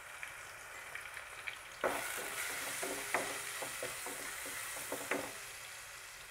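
Brinjal pieces frying in oil in a kadai, a sizzle that grows louder about two seconds in as a wooden spatula stirs them, with scraping and tapping against the pan, easing off near the end.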